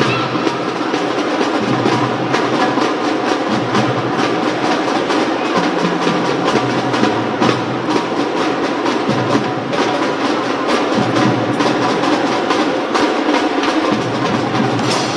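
Children's drum band playing: snare and bass drums beating a steady, fast rhythm with cymbal crashes, while bell lyres and mallet percussion carry a melody.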